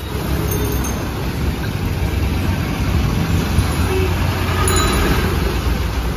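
Heavy rain hissing down on a street with traffic, and a bus engine running close by as a steady low rumble under the rain.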